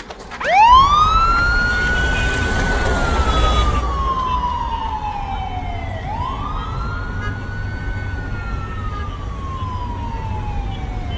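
Police vehicle siren wailing: each cycle sweeps up quickly to a high pitch and then sinks slowly, about two cycles in all, over a low steady engine rumble.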